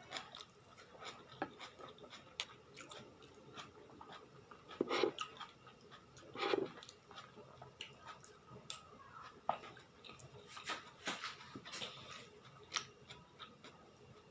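Close-up eating sounds: chewing and wet mouth smacks, with many small clicks throughout and two louder, lower sounds about five and six and a half seconds in.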